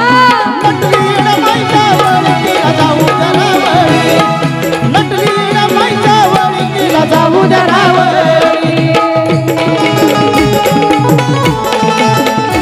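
Live Marathi folk song: a woman's amplified singing voice over steady hand-drum rhythm and other accompanying instruments.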